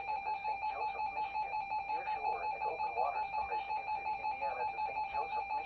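Electronic alarm beeping, a high tone pulsing rapidly about four to five times a second, with a radio voice faintly underneath.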